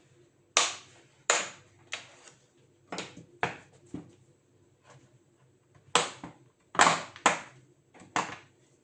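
Sharp plastic clicks and snaps from the HP Envy x360 laptop's case being worked open: about eleven in irregular clusters, the loudest around six to seven seconds in.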